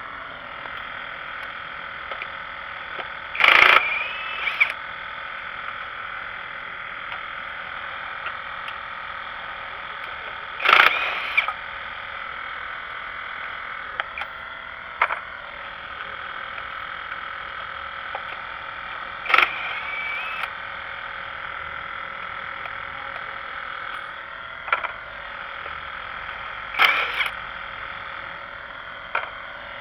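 A steady chorus of frogs calling. A sharp, louder click-like sound stands out about every seven or eight seconds, four times in all, some followed by a short rising note.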